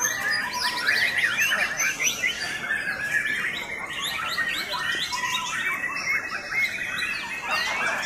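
Several caged white-rumped shamas (murai batu) singing at once, a dense, overlapping mix of rapid whistles, trills and chirps.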